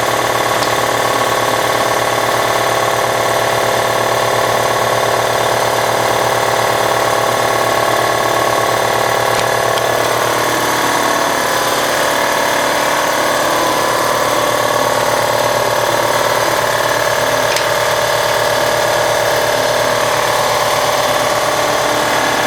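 Air compressor running steadily and loudly, a constant machine drone with a strong hum.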